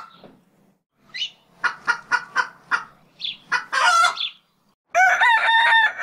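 Poultry calling: a quick run of short, sharp clucks in the first half, then a longer pitched call lasting about a second and a half near the end, broken once.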